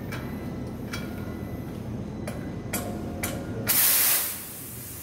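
Medical oxygen cylinder's valve being opened with a cylinder key: a few sharp metallic clicks, then about three and a half seconds in a loud hiss of oxygen rushing out that fades within about a second.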